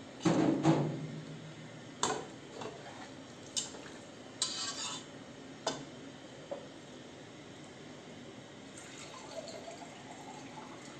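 Metal slotted spatula stirring soup in an aluminium pressure cooker: liquid sloshing, with scraping and clanks against the pot. The loudest clank rings briefly about half a second in, and a few single clinks follow over the next several seconds.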